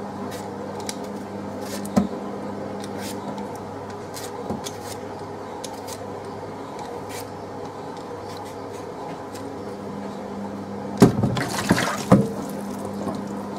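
Potatoes being peeled and handled in a bowl of water: small scattered clicks and drips, then a loud burst of splashing and sloshing about eleven seconds in. A steady hum runs underneath.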